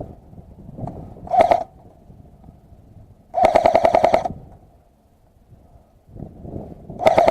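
Airsoft gun firing full-auto bursts, a rapid clatter of about fifteen shots a second with a whine under it. There are three bursts: a short one just over a second in, a longer one of about a second in the middle, and another starting near the end.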